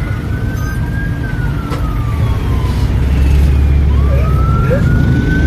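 Heavy engine rumble heard from inside a moving passenger vehicle, growing louder about halfway through. Over it, a thin high whine slowly falls in pitch and then rises again near the end.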